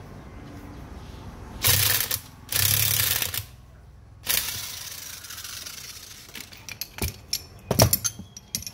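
Workshop tool noise during a water pump bearing and seal repair: two short bursts of loud rattling noise about two seconds in, a third sharp burst about four seconds in that fades away, then a run of scattered clicks and knocks.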